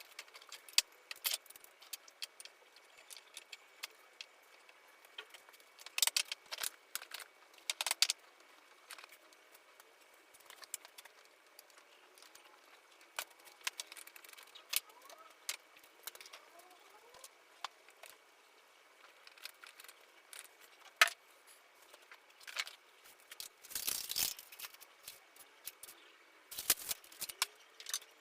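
Scattered sharp clicks and knocks of wooden parts and hand tools being handled during woodworking assembly, with a busier clatter near the end.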